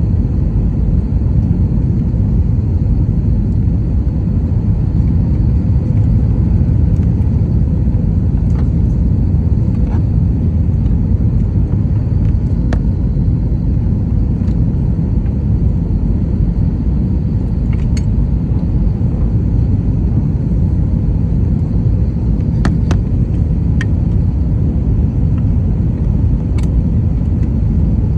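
Cabin noise inside an Airbus A321 airliner in flight: a steady, loud, low rumble of engines and airflow, with a few faint clicks.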